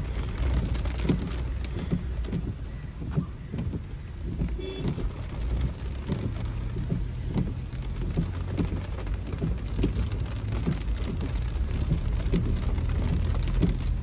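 Heavy rain pattering on a moving car's roof and windshield, heard from inside the cabin: many sharp drop hits over a steady low rumble of the car on the wet road.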